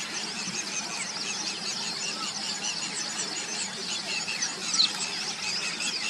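A dense chorus of birds chirping, many short high chirps overlapping continuously, with one louder falling chirp a little before the end.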